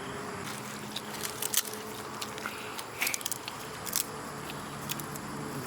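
A person eating and chewing, with scattered small clicks and crunches over a steady low hum.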